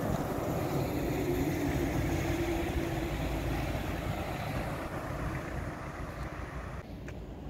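A bus passing on the road, its engine giving a steady low drone that slowly fades away.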